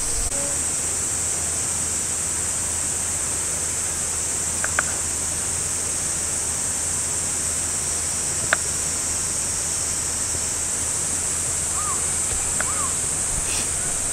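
Steady rushing of a mountain river with an even, high-pitched insect drone over it. A kitchen knife taps sharply on a wooden cutting board twice while slicing sudachi citrus.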